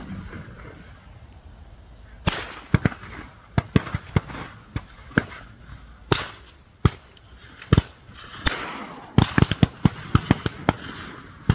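Shotgun shots from hunters around the lake: many sharp bangs in irregular succession, some louder and trailing an echo, several in a quick cluster near the end.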